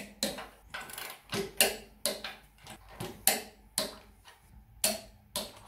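Long-handled ratchet wrench tightening the anchor-bolt nuts on a car lift column's base plate: a string of sharp metallic clicks, unevenly spaced, about two to three a second.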